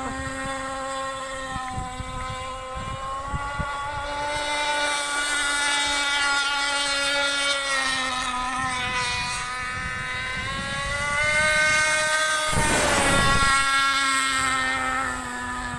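RC speed boat's motor running at speed as a steady high whine whose pitch drifts slightly. About twelve and a half seconds in it swells into a loud rushing pass as the boat races close by, throwing up spray.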